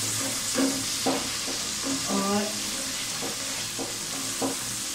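Sliced onions sizzling in hot oil in a metal pot, with a steady hiss, while a spatula stirs and scrapes across the pot in repeated short strokes. The onions are at the golden-brown stage of frying.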